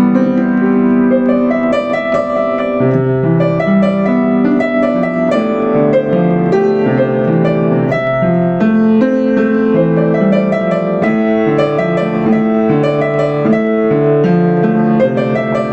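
Yamaha U5 upright piano played solo: a sustained melody over a steady stream of moving bass and broken-chord notes, even in loudness throughout.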